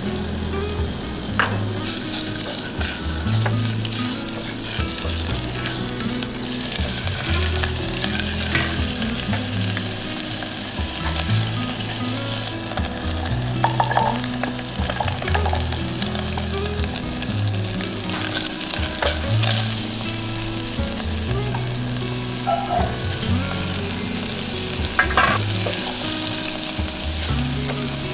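Chicken thigh pieces sizzling steadily in hot oil in an aluminium saucepan, stirred with a silicone spatula that scrapes and taps the pan now and then. Carrot and Chinese cabbage pieces are tipped in and stirred through as it goes on.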